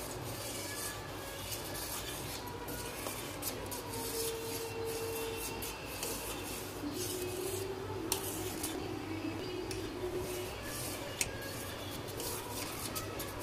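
A spoon scraping round the bottom of a stainless steel pot as thick masala oats porridge is stirred, in repeated rasping strokes. There are a couple of sharp clinks of the spoon on the pot. The stirring keeps the thickening oats from sticking to the bottom.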